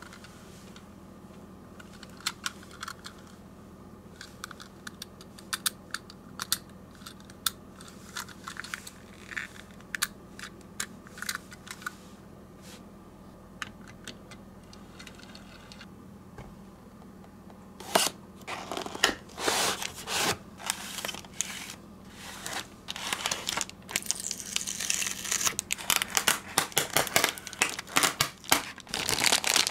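Light, scattered clicks and taps of a small diecast toy car being handled on a tabletop, then, a little past halfway, dense crinkling of thin plastic bags and tape peeling from a cardboard box as a toy set is unpacked, growing busier toward the end.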